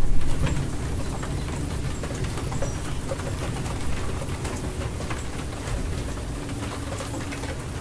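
Steady rain falling, with a fine patter of drops, easing a little in the first second. A low bird call sounds faintly a couple of times behind it.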